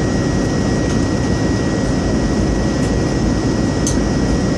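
Jet airliner's engines and airflow making a steady, even noise, with a thin steady high tone over it and a light tick about four seconds in.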